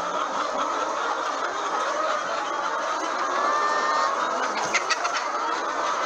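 A large flock of caged laying hens clucking and calling together in a steady, dense din, with two sharp clicks about five seconds in.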